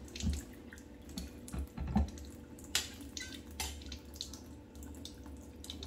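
Kitchen tap running a thin stream of water into a stainless steel sink, with a few light knocks of a spoon and plate against the sink.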